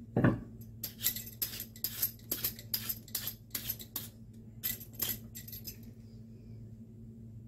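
Metal Y-peeler scraping the green skin off watermelon rind in quick, sharp strokes, about three a second, which stop about six seconds in. Just before the strokes there is a dull knock as a piece of rind is set down on the plate, and a low steady hum runs underneath.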